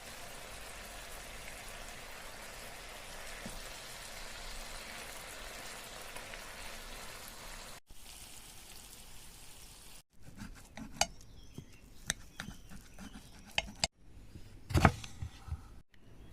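Chicken skewers and grilling cheese sizzling in a frying pan, a steady hiss. After two abrupt cuts the sizzle is quieter, with scattered sharp clicks and one louder knock near the end, like utensils and food being handled in the pan.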